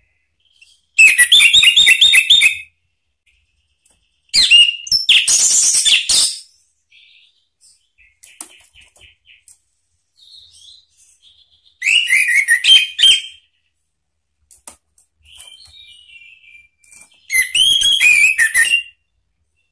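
Orange-headed thrush singing: four loud phrases of fast, repeated whistled notes, each about a second and a half long, with soft short calls in the pauses between them.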